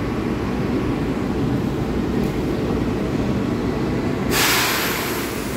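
Standing E500-class electric locomotive giving a steady low hum at the platform. A loud burst of compressed-air hiss comes about four seconds in and lasts about a second.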